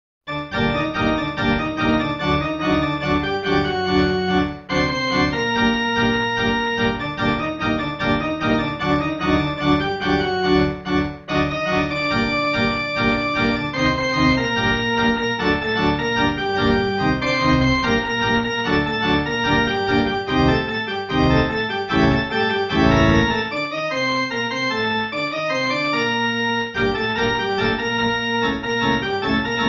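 Organ playing the closing voluntary, a medley of tunes on the theme of money, in full chords. It starts suddenly just after the opening and goes on steadily.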